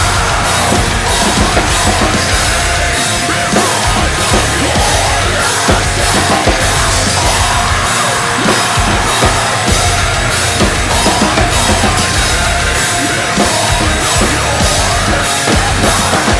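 Acoustic drum kit with Sabian cymbals played hard along to the band's heavy metal recording. Cymbal strikes come about twice a second over fast kick-drum runs that start and stop.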